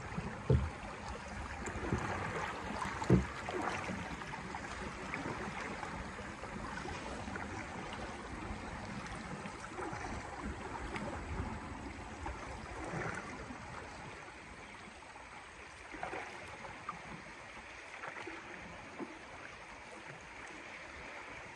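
Water rushing and lapping along the side of a wooden dugout canoe as it moves down a muddy river, with a few scattered knocks and splashes, growing quieter in the second half.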